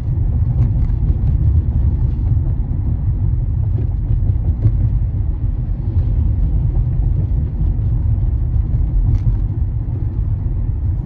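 Steady low rumble of a car driving along a street: tyre, road and engine noise, with no change in pace.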